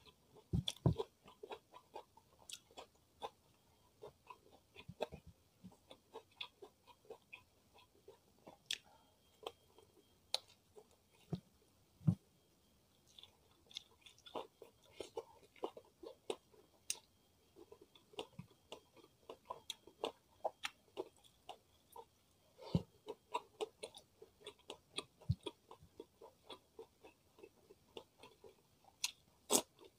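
Close-miked chewing of fried chicken with sambal: a continuous, irregular run of soft wet mouth clicks and smacks, with now and then a louder bite.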